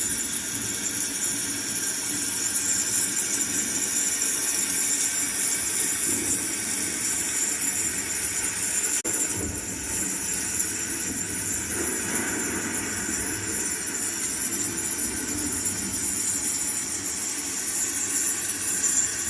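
Rain sound effect: a steady hiss of falling rain, with a brief break about nine seconds in.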